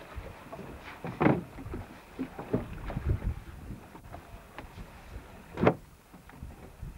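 Wind buffeting the microphone over water sloshing and slapping against a small boat's hull in choppy sea, with two louder splashes, one about a second in and one near the end.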